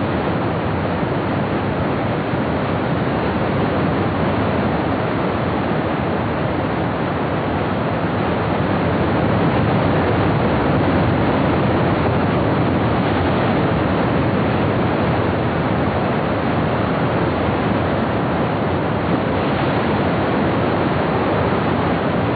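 Loud, steady rush of churning whitewater rapids.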